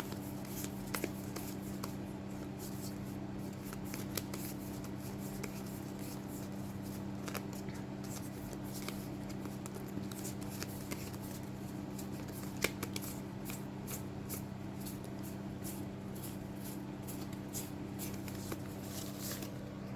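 Hands flipping through and handling a deck of game cards: scattered soft clicks and slides of card stock, with one sharper click a little past the middle, over a steady low hum.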